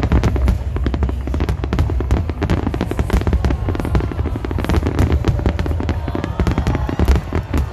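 A barrage of aerial firework shells bursting: a dense, continuous run of bangs and crackling over a deep low rumble, with no pause.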